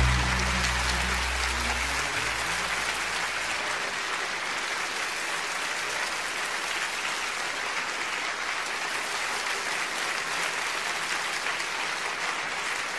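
Audience applauding steadily, while the last low guitar note of a song dies away during the first two seconds.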